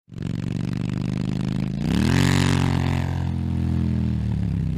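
Motorcycle engine running, revving up about two seconds in and then holding at the higher revs.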